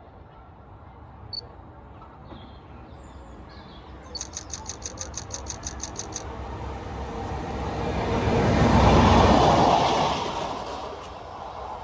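A train passing, its rumble swelling to a peak and fading away over about five seconds in the second half. Before it, a brief run of quick high chirps, about six a second.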